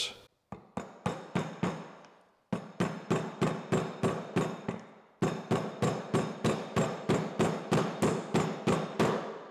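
Hammer tapping a short length of 3/4-inch PVC conduit down into a liquid-tight fitting on the back of a generator inlet box. The taps are sharp and quick, in three runs: a few spaced taps, then two longer runs of about three or four a second.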